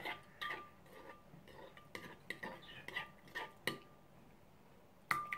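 A metal spoon stirring slime in a glass bowl, clinking against the glass in irregular taps, a few of them ringing briefly.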